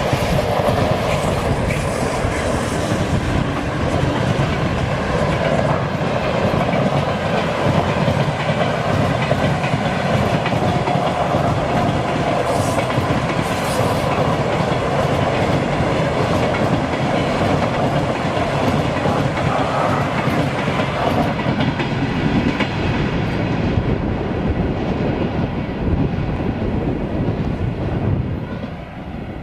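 A train rolling past close by, its wagons' wheels clattering over the rail joints in a loud, steady rush. Near the end the noise drops away as the end of the train passes.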